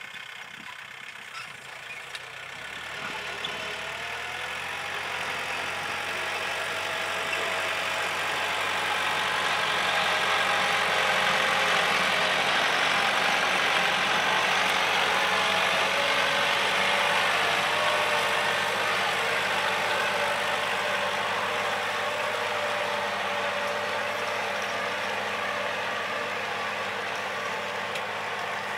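Kubota L4708 tractor's diesel engine running steadily under load while pulling a disc plough through the soil. It grows louder over the first several seconds, holds, then eases off a little near the end.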